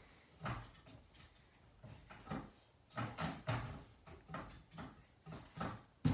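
Irregular knocks and thuds, roughly one every half second, from a child swinging and flipping on a home gymnastics training bar over a folding mat: the bar's frame clunking and feet landing on the mat. The loudest thud comes near the end.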